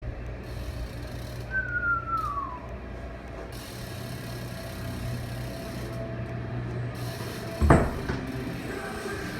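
BMX bike riding on wooden skatepark ramps: rolling and mechanical ticking over a steady low hum, a short falling squeak about two seconds in, and one loud thud near the end.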